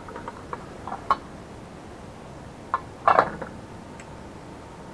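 Metal clinks and knocks of a cast-iron pot lid being handled with a utensil. There are a few light clinks in the first second and a louder knock and rattle about three seconds in.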